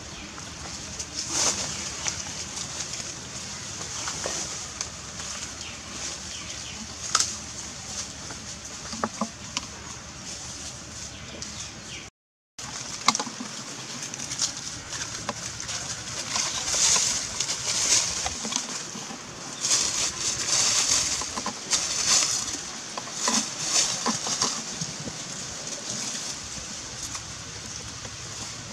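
Forest ambience: continuous high-pitched chirping with scattered small clicks and rustles. The sound cuts out for a moment about twelve seconds in, then resumes busier.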